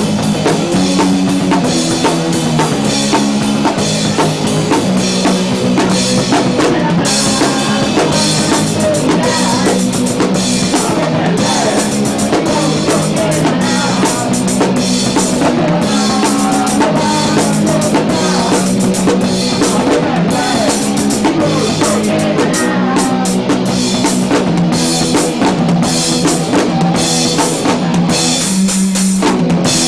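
Punk rock band playing live: drum kit with frequent kick, snare and cymbal hits over electric guitar and bass chords.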